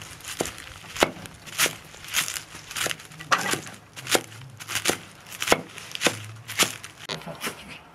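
Large kitchen knife chopping a bundle of fresh leafy greens on a wooden board: a steady run of sharp knocks as the blade cuts through and strikes the wood, about twice a second.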